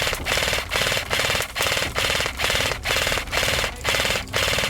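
Airsoft electric light machine gun firing full-auto in short, rapid bursts, about two bursts a second, laying down cover fire.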